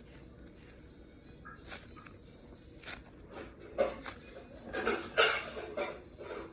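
Stretchy foam putty fidget toy being squished and pulled for ASMR, giving a string of soft, irregular crackly squishes that grow louder and closer together about four to five and a half seconds in.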